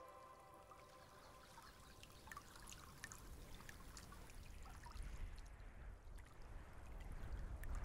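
Faint water trickling and lapping among rocks at the shoreline, with small drips and splashes. A low rumble builds about five seconds in.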